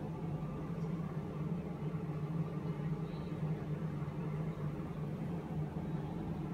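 A steady low hum over a faint even hiss, without change or break.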